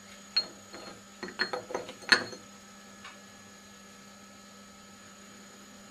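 A handful of short metallic clicks and knocks, the loudest about two seconds in with a brief ring, as a steel gear blank is unclamped and lifted off a rotary table. A faint steady hum runs underneath.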